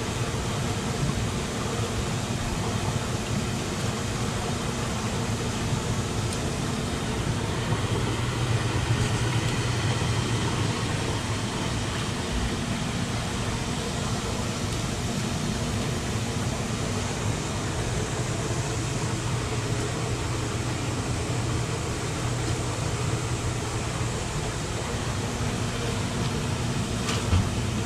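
Live-bait shrimp tank's pump and aerator running: a steady electric hum over rushing, bubbling water. A couple of short knocks near the end.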